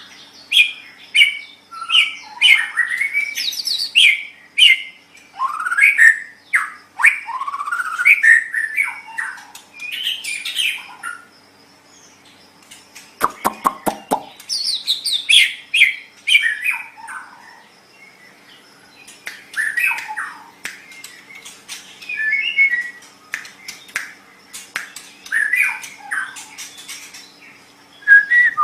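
White-rumped shama (murai batu) singing a varied song of clear whistles, slurred rising and falling notes and quick chattering phrases, with short pauses between bursts. A brief harsh, buzzy note comes about 13 seconds in.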